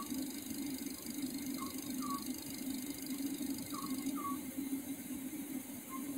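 Oriental scops owl calling: a short phrase of two or three slightly falling hoots, repeated about every two seconds, over a steady low hum.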